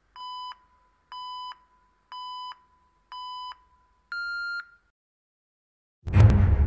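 Race-start countdown beeps: four short electronic beeps about a second apart at one pitch, then a fifth, higher and slightly longer beep that marks the start. About six seconds in, loud music comes in with a heavy low hit.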